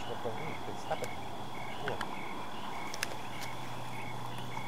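Night insects calling: a cricket's short high chirp repeating evenly a little under twice a second over a steady high trill, with a few faint clicks.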